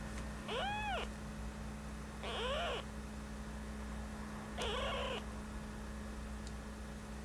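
Newborn kitten mewing three times, short thin cries about two seconds apart, each rising then falling in pitch, while being tube-fed.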